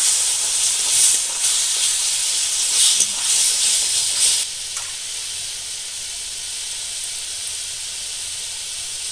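Wet paste of ground spices sizzling in hot oil in a kadai. For the first four seconds or so it is louder, in surges as it is stirred and fried down, then it settles to a steadier, quieter sizzle.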